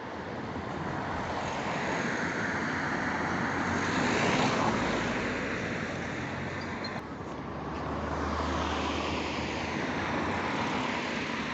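Road traffic: vehicles passing with a rushing tyre noise that swells to a peak about four seconds in and again around eight to nine seconds, a low engine hum under the second swell.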